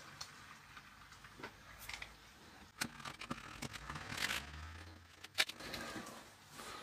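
Scattered small clicks and scrapes of a plastic numeric keypad being handled and checked while it is taken apart, with sharper clicks about three seconds in and again past five seconds.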